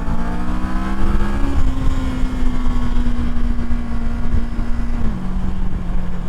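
Kawasaki Versys 650's parallel-twin engine on the move: it pulls with rising pitch, then drops in pitch as it shifts up about a second and a half in. It runs at a steady pitch until it steps down once more about five seconds in, under a heavy low rush of riding wind.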